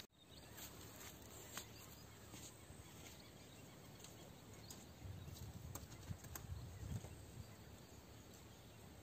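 Faint outdoor quiet with a few soft clicks, and a low rumble swelling about five seconds in and fading near seven seconds.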